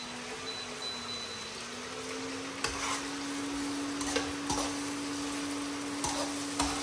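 Sliced onions sizzling in oil in a wok on an induction cooktop, stirred with a slotted metal spatula that scrapes and taps the pan several times. A steady low hum from the cooktop runs underneath.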